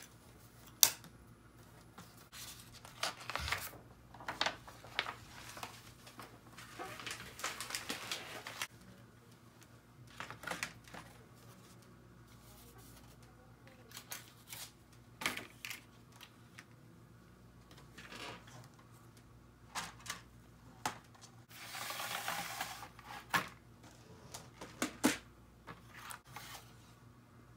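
A picture frame being handled: sharp clicks and taps from the small metal turn clips and the hardboard backing, with the loudest click about a second in. Between them come dry sliding and rustling noises as board and paper are moved across each other.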